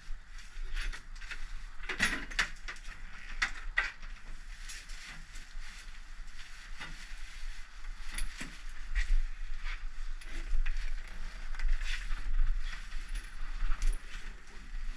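Irregular clicks, clatters and scrapes of a long metal wildlife-capture pole being worked against the metal parts in the base of a vending machine.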